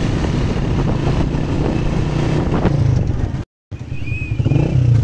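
Loud rumble of wind on a phone microphone and motorcycle and road traffic noise from a moving ride. It cuts out abruptly for a moment about two-thirds through, then resumes with motorcycle engines running.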